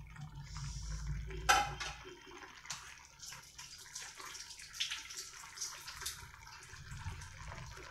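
Cabbage simmering in a sauce in a steel wok, the liquid bubbling with many small, irregular pops and crackles, one louder pop about a second and a half in.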